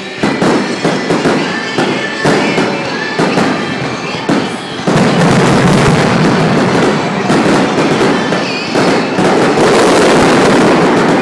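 Aerial fireworks shells bursting in quick succession. From about five seconds in they merge into a dense, continuous barrage of bangs and crackle: the finale of the show.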